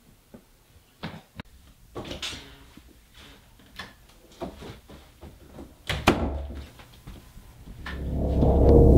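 An interior door being handled: scattered knocks and clicks, then a sharp bang about six seconds in. Near the end a low rumbling drone swells up and becomes the loudest sound.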